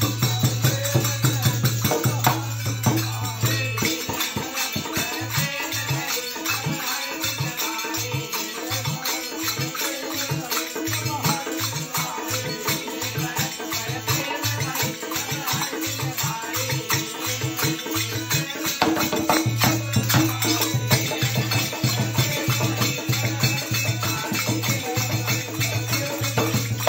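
Instrumental passage of faag folk music: a dholak drum beats a quick rhythm under a constant jangling metal percussion keeping time. A steady low hum sounds for the first few seconds, drops out while the drum strokes stand out on their own, and returns about two-thirds of the way through.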